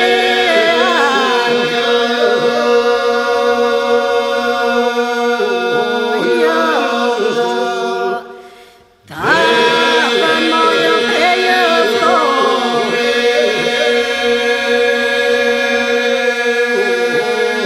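Albanian Lab polyphonic folk song sung a cappella, a woman's lead voice among the group: a steady held drone under ornamented, weaving vocal lines, in two long phrases with a short breath-break about eight seconds in.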